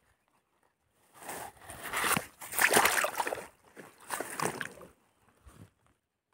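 Water sloshing and splashing in irregular bursts as a wet nylon fishing net and catch are handled over the side of a small boat. It starts about a second in and dies down after about four seconds.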